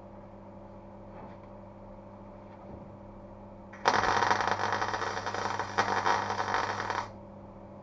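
A MIG welder laying a weld on the steel floor panel: one crackling, sizzling burst of about three seconds, starting about halfway through and cutting off abruptly.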